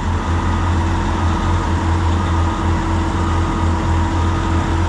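Heavy diesel machinery running steadily with a deep hum, while a short high beep sounds about once a second, five times.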